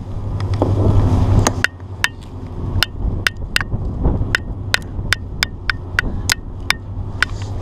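A run of sharp, irregular clicks, roughly two or three a second, starting about a second and a half in, over a steady low hum.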